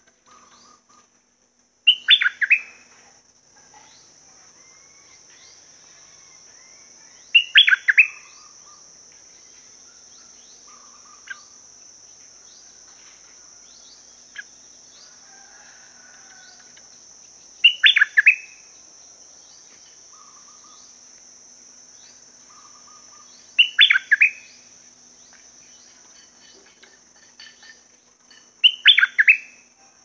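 Stripe-throated bulbul singing five short, loud song phrases spaced several seconds apart, with a steady high-pitched hiss underneath throughout.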